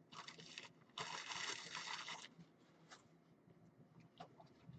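Two short rustling, scraping noises, the second longer and louder about a second in, followed by a few faint clicks.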